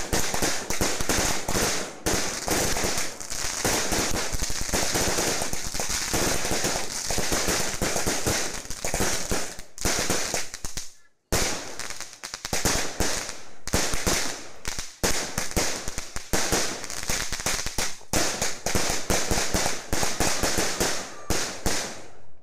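A 49-shot consumer fireworks battery (cake) firing in rapid succession: dense bangs with crackling stars between them. There is a brief break about eleven seconds in, and the firing cuts off suddenly at the very end.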